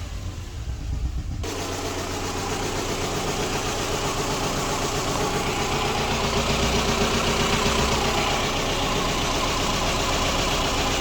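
Subaru Impreza flat-four boxer engine idling roughly with an uneven beat: it is misfiring on cylinders 1 and 3 (codes P0301 and P0303). The sound grows fuller and brighter about a second and a half in.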